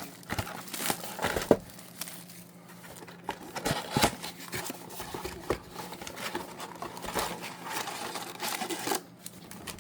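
Plastic and cardboard packaging of a box of trading cards crinkling and tearing as it is unwrapped and opened, with irregular sharp crackles throughout.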